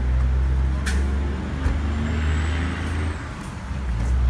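A vehicle engine idling with a steady low rumble, with one sharp knock about a second in.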